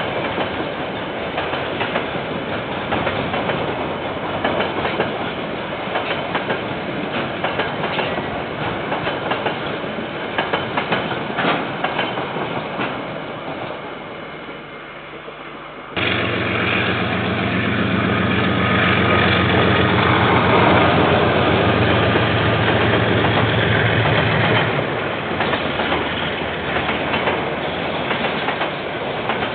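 Freight train wagons rolling past, wheels clicking and clattering over the rails. About halfway through the sound switches abruptly to a diesel locomotive's engine running close by, a steady low engine note that fades out some nine seconds later, leaving wagon wheel noise again.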